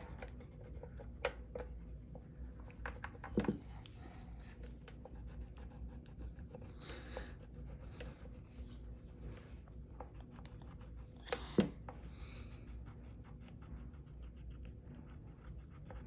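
Wax crayon scribbling on paper: a quick, steady run of soft scratchy strokes as an area is coloured in. A few sharper knocks stand out, the loudest about two-thirds of the way through.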